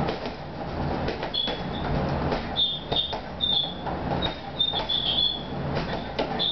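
Boxing-gloved punches thudding into a hanging heavy punching bag, landing irregularly about one or two a second, with short high metallic squeaks from the bag's chain mount as it swings.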